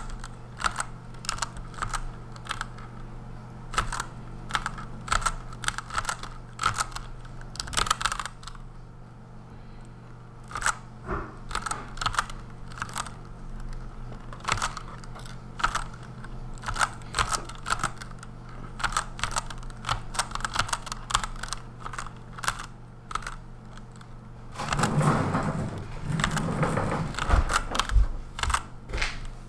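Typing on a Redragon Kumara K552 mechanical keyboard with lubed Outemu Red switches: irregular clusters of key clicks as whole words are stroked as steno chords, over a steady low hum. Near the end there is a louder, fuller stretch of about four seconds.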